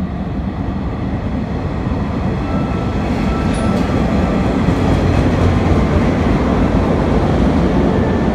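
413 series electric multiple unit running in over the station points, a low rumble of wheels on rail that grows louder about halfway through as the cars draw close and pass.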